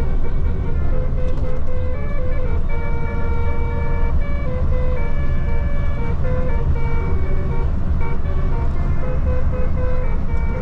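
Telolet bus horn playing a melody of held notes that step up and down in pitch, with short gaps between phrases, over a steady low rumble.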